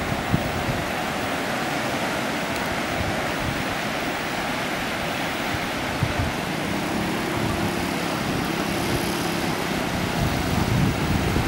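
Sea surf washing steadily onto a sandy beach, a constant rushing wash. A faint low hum joins it about halfway through.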